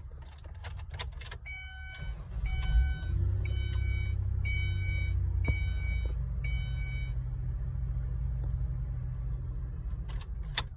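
Key clicking into the ignition, then a 2002 Ford Escape's engine cranks, starts and idles steadily on a newly programmed transponder key, a sign that the immobilizer accepts the key. A dashboard warning chime sounds six times in an even rhythm over the start, and keys rattle near the end.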